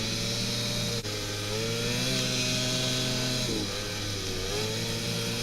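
Snowmobile engine running under throttle: a steady engine note that rises, holds, then drops a little about three and a half seconds in and settles. There is a brief break about a second in.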